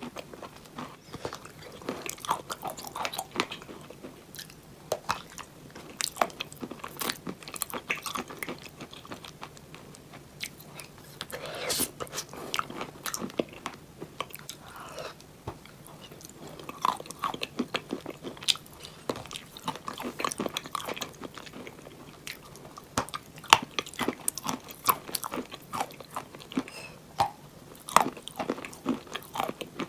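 Close-miked biting and chewing of molded chalk bowls: many sharp, irregular crunches and crackles as the chalk breaks and is chewed.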